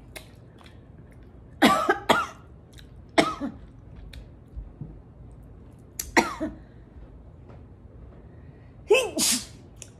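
A woman coughing in four short fits, the first a double cough and the last near the end. The heat of the two-times-spicy crab sauce is catching in her throat.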